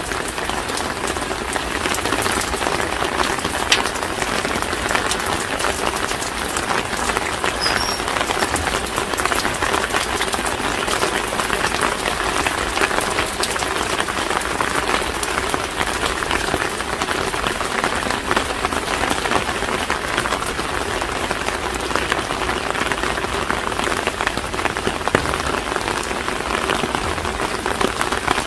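Steady rain falling and pattering on hard surfaces, a constant hiss full of fine drop ticks.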